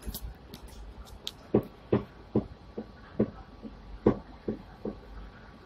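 A series of short, dull knocks and thumps at an uneven pace, about two or three a second, inside a tram car standing at a stop. They die away near the end.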